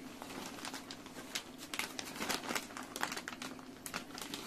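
Plastic crinkling with many small, irregular clicks as fishing tackle is handled.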